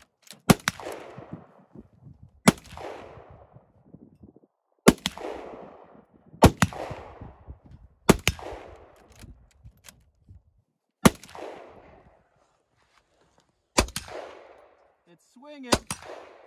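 Rifle shots fired at steel swinging targets, about nine at uneven intervals of one and a half to three seconds, with two in quick succession near the start. Each crack is followed by an echo that fades over about a second.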